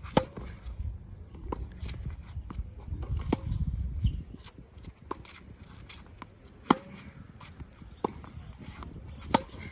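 Tennis rally on a hard court: a ball struck back and forth by racket strings, a sharp pock every second or two. The nearer player's hits are the loudest, each with a short ring, and the far player's hits are fainter. A low rumble runs under the first half.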